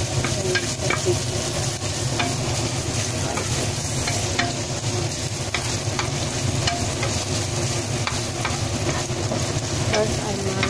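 Black chicken pieces sizzling in oil in a nonstick frying pan while a wooden spatula stirs and scrapes them, with frequent short clicks of the spatula against the pan.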